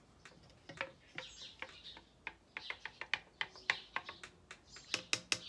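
Wooden spoon knocking against the inside of a glass jug while stirring oat milk. Irregular taps at first, then near the end a fast, steady run of about five clinks a second, each with a short ring from the glass.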